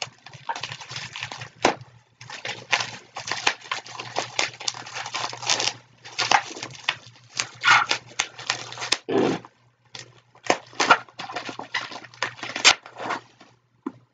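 Packaging being handled and unwrapped: irregular bursts of rustling and crinkling with small clicks, over a steady low hum. A dull thump about nine seconds in.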